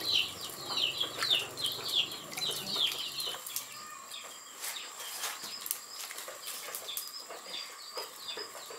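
Chicks peeping: a run of short falling chirps, two or three a second, growing fainter about three seconds in, with a few faint clicks.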